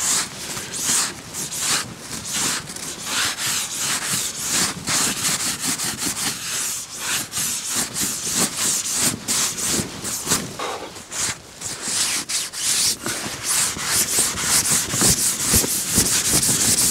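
A cloth scraping frost and ice off the flysheet of a Fjallraven Abisko Lite 1 tent, in quick repeated scratchy strokes.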